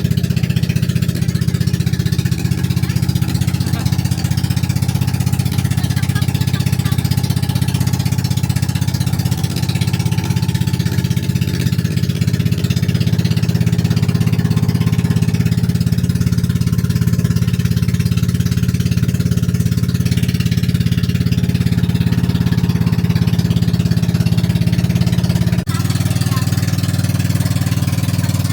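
A motor vehicle's engine running steadily at an even speed, with a slight change in its sound near the end.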